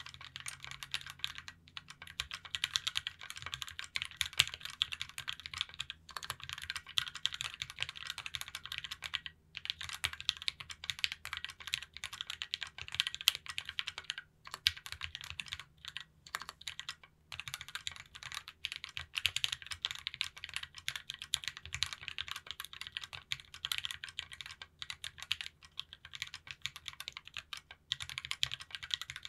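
Steady typing on a 60% mechanical keyboard with Gateron Black Ink linear switches fitted with stock UHMWPE stems, in an aluminium case with a brass plate and GMK Delta keycaps. It is a dense run of keystroke clacks with a few short pauses.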